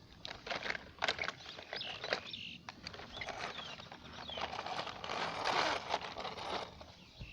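Irregular scraping, crunching and sharp clicks, like soil or grit being worked, with short bird chirps now and then.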